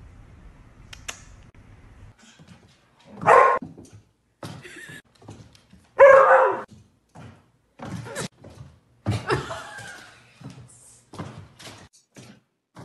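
A dog barking in short separate barks, loudest about three and six seconds in, with a few weaker barks later. Scattered short knocks and thuds fall between the barks.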